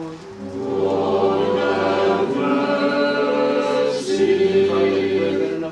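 Church choir singing a liturgical hymn a cappella in sustained, held chords, part of an Orthodox Divine Liturgy. The voices come in just after the start and move to new chords about two and four seconds in.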